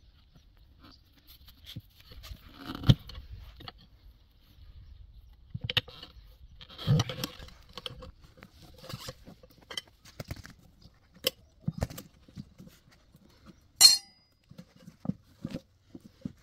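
A tyre being worked off a steel wheel rim by hand: scattered knocks, scrapes and metal clinks of tools on the rim and rubber. Heavier thumps come about 3 and 7 seconds in, and a sharp click near the end.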